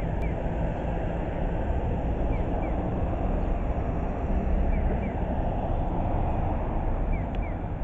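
Outdoor station-plaza ambience: a steady rumbling noise, heaviest in the low end, with faint short chirps in pairs now and then.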